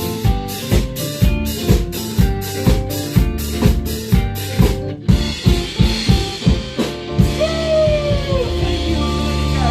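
A band plays an instrumental passage without singing. The drum kit keeps a steady beat of about two and a half strokes a second, over bass and guitar. About five seconds in the drumming breaks off, leaving held bass notes and a gliding lead line.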